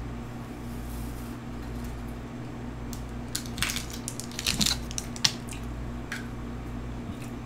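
Scattered crinkles and clicks from a plastic drink-mix packet and a plastic water bottle being handled, clustered about three to five seconds in, over a steady low hum.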